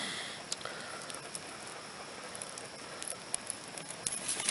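Campfire of stacked sticks burning, crackling and popping with sharp snaps over a steady hiss; the crackles come thicker near the end.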